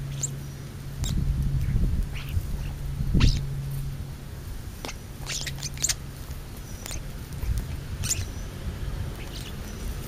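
European starlings feeding at close range: short squawky calls and sharp clicks and knocks from the flock, the loudest knock about three seconds in, over a low hum and rumble.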